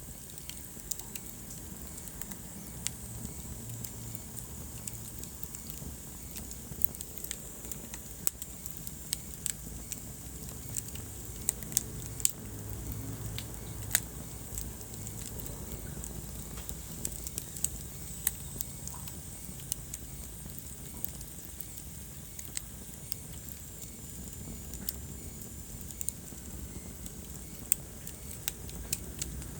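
Wood fire burning in a fireplace, with a steady low rumble of flames and frequent irregular crackles and sharp pops, a few louder pops in the middle.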